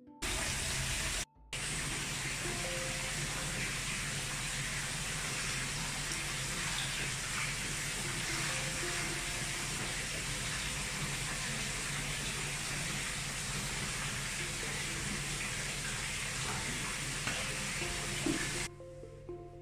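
Bath tap running into a filling bathtub, a steady rush of water, with soft background music underneath. The water cuts off near the end, leaving only the music.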